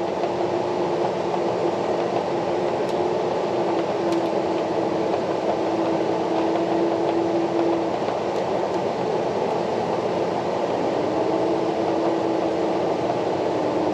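John Deere S780 combine running under load while harvesting and unloading soybeans, heard from inside the cab: a steady machine drone with a steady hum tone in it. The hum dips slightly about eight seconds in and comes back up a few seconds later.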